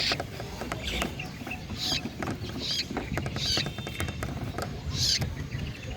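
Long-tailed shrike (cendet) giving short, harsh, scratchy calls about once a second, over a background of scattered clicks and a low rumble.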